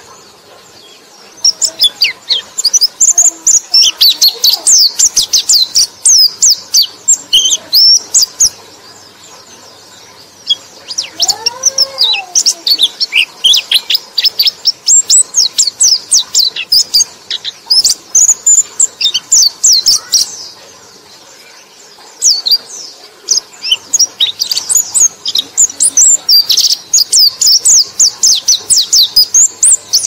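White-eye (pleci) song: three long bouts of rapid, high-pitched twittering with short pauses between them. A fainter, lower arching whistle sounds once, about a third of the way through.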